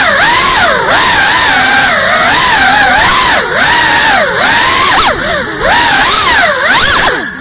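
GEPRC Cinelog 35 cinewhoop's brushless motors and ducted propellers whining loudly, heard from on board, the pitch swooping up and down continually as the throttle changes, with brief drops in level about halfway through and near the end.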